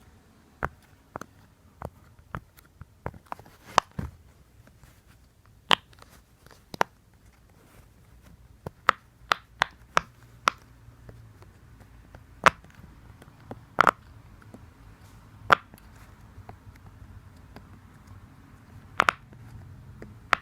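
Tapping on a silicone pop-it fidget toy: sharp, irregular taps and clicks, one every second or so, some much louder than others.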